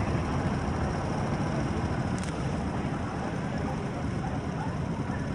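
Small river boat's engine running steadily underway, a continuous low rumble with water and air noise over it.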